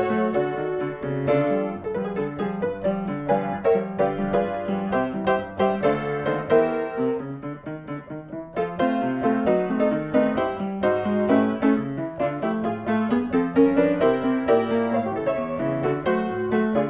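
Background music led by piano, a bright run of notes that drops back briefly about seven seconds in before picking up again.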